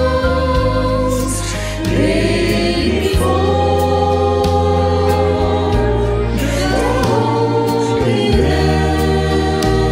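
Mixed choir of men's and women's voices singing a slow hymn in harmony, holding long notes, over a steady low bass line that changes note every second or two.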